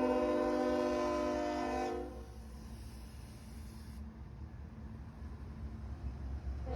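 Union Pacific diesel locomotive's air horn sounding a chord that cuts off about two seconds in, leaving the low rumble of the passing train. The horn starts again right at the end.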